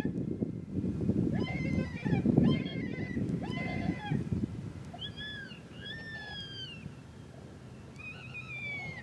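Predator call used for coyote hunting, sounding high, whining animal distress cries. Short repeated notes come first, then longer wails that rise and fall, over a low rumbling noise that fades after the first few seconds.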